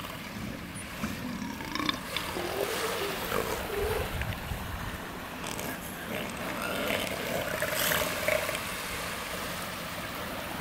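Steady wind and surf noise on the beach, with scattered faint calls that could come from the resting seals and sea lions.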